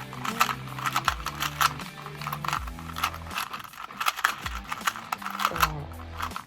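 Rapid plastic clicking and clacking of a 2x2 speedcube being turned fast through a solve, in quick runs of turns with short pauses between them.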